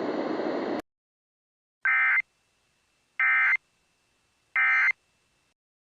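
Emergency Alert System SAME end-of-message code: three short, identical bursts of buzzy digital data tones, evenly spaced about a second and a half apart, marking the end of the alert. Before them, a steady hiss cuts off suddenly under a second in.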